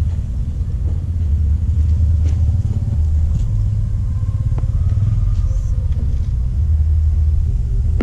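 Loud, continuous low rumble, with a few faint light clinks of a spoon against a small dish.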